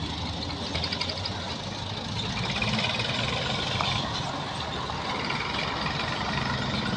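Heavy road-construction machinery engines running steadily.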